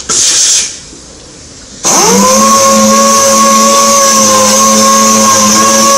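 A short, loud burst of hiss at the very start. About two seconds in, an orbital sander starts up, spins up quickly and settles into a steady whine with a hiss as it sands a polycarbonate car headlight lens.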